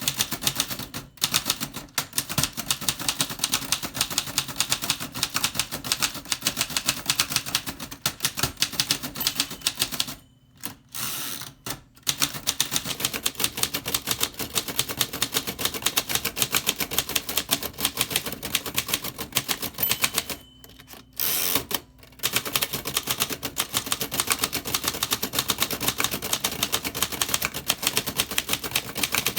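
1927 Remington Portable #2 manual typewriter being typed on: a fast, steady run of key strikes, with short pauses about ten seconds in and again about twenty seconds in.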